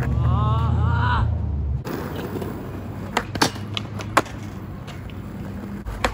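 A low steady hum with a short wavering high tone stops about two seconds in. After that, a skateboard rolls on smooth concrete, with several sharp clacks of the board.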